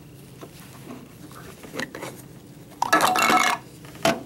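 Glass sample cell being handled: a short squeaky rubbing about three seconds in as it is wiped, then a sharp click near the end as it goes into the pocket colorimeter's cell holder.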